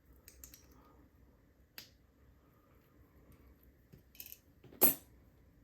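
Small metal clicks and ticks from handling the parts of a disassembled padlock: a few light clicks early on and in the middle, then one sharper click about five seconds in.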